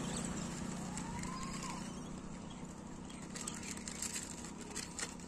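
Road noise from a vehicle passing on the bridge, fading away over the first few seconds, with a faint rising-and-falling tone about a second in; later a few light crinkles and clicks, like snack wrappers being handled.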